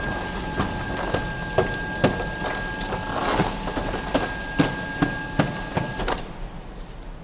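Electric roller shutter door opening: the motor runs with a steady whine while the door clacks rhythmically, about twice a second. The motor stops suddenly about six seconds in as the door reaches the top.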